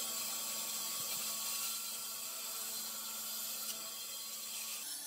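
Stationary bandsaw running, a steady hum with hiss, as a wooden board is fed to the blade. The hum steps up slightly in pitch near the end.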